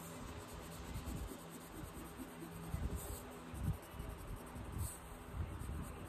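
Coloured pencil scratching on paper in quick back-and-forth shading strokes.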